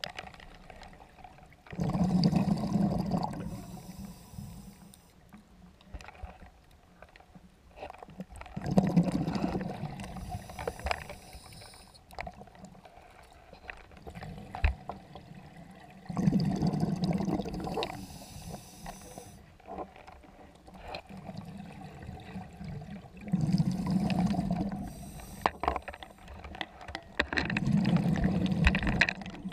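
Scuba diver breathing through an open-circuit regulator underwater: five loud bursts of exhaled bubbles about every six to seven seconds, with a fainter hiss of inhalation between them.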